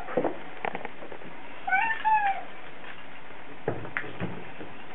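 Bengal cat meowing once, a two-part call whose pitch rises then falls, about two seconds in, with a few soft knocks around it. The cat is crying to be taken out on his car trip.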